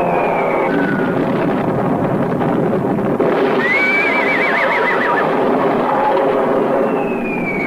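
A horse whinnies, a shrill wavering call about halfway through, over a dense steady din of an air-raid battle scene. Near the end a long falling whistle begins.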